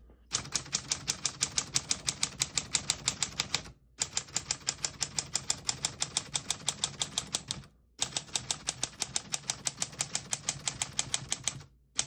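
Keys and typebars of a 1936 Corona Standard portable typewriter striking the platen in fast, even keystrokes, about eight a second, in three runs of about four seconds with brief pauses between.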